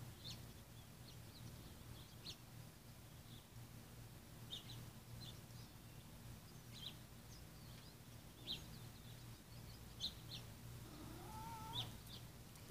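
Faint outdoor ambience: sparse, short bird chirps about once a second over a low steady hum, with a brief wavering call near the end.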